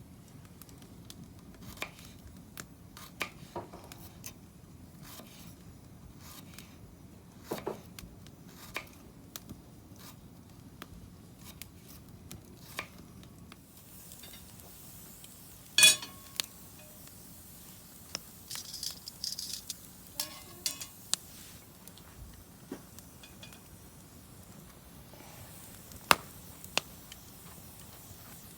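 Tableware being handled: scattered light clicks and taps, with a sharp clink that rings briefly about halfway through and another near the end.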